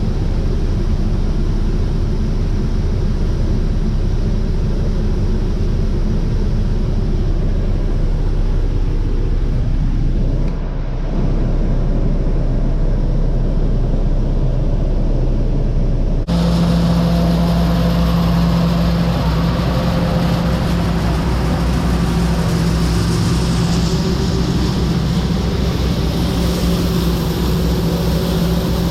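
Farm machinery engines running steadily at the grain bins. About 16 seconds in the sound cuts abruptly to a different steady, higher-pitched machine hum with more rushing noise over it.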